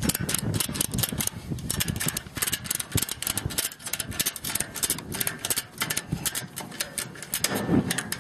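Ratchet tie-down strap being cranked tight: a rapid, uneven run of sharp metal clicks from the ratchet.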